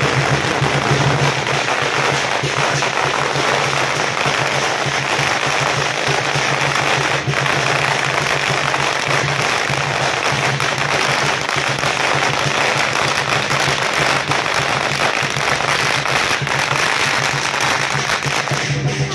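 A long string of firecrackers going off in a continuous rapid crackle of bangs, lasting almost twenty seconds and stopping abruptly, with music faintly underneath.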